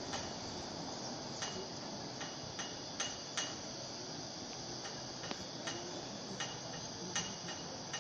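Irregular sharp ticks, about one or two a second, over a steady high-pitched hiss.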